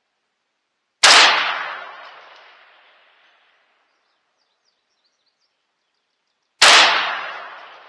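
Two single rifle shots from a 6mm ARC AR-15, fired deliberately about five and a half seconds apart during barrel break-in. Each shot is a sharp, loud crack that echoes and dies away over about two seconds.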